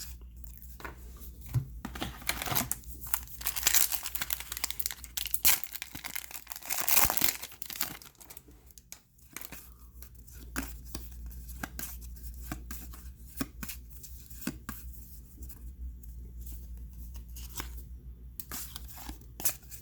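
Trading-card pack wrapper being torn open and crinkled, with cards being handled, as a run of irregular rustles and crackles that is busiest in the first half.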